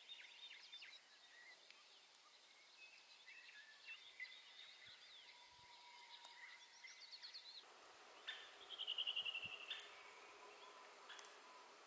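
Faint songbirds chirping and whistling, with a rapid, slightly falling trill lasting about a second and a half about eight seconds in, the loudest sound.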